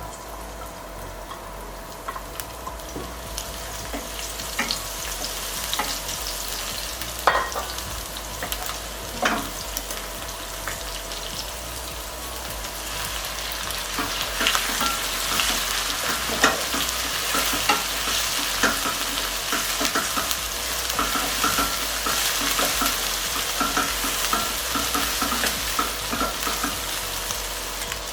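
Stir-fry sizzling in hot oil in a pan, the sizzle growing louder over the first few seconds, with frequent sharp clicks and scrapes of a spatula against the pan.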